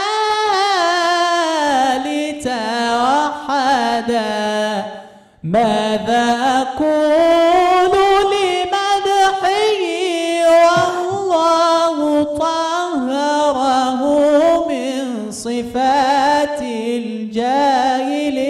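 Young male munshid singing an Islamic ibtihal unaccompanied into a microphone in a high voice. He draws out long, ornamented melismatic phrases in maqam Bayati, with a brief pause for breath about five seconds in.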